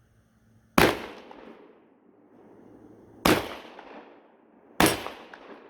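Three 12-gauge shotgun shots, the first a slug, spaced about two and a half seconds and then a second and a half apart, each followed by a short ringing echo.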